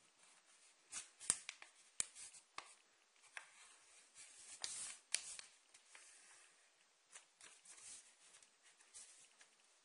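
A sheet of paper being folded and creased flat by hand: quiet rustling with sharp crackles as the fold is pressed, busiest in the first few seconds and sparser later.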